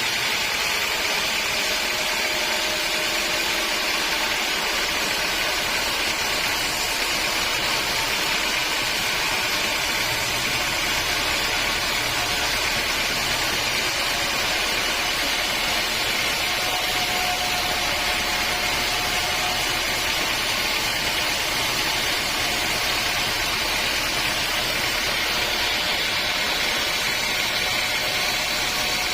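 Sawmill machinery running steadily, a continuous mechanical noise that holds at an even level throughout.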